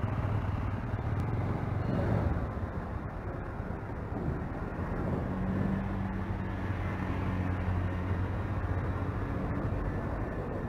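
Vehicle engine running with a steady low hum and road noise while driving along, with no sudden impacts.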